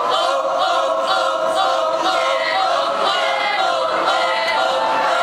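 A group of voices singing together in unison, a cappella, in a rhythmic chant-like melody.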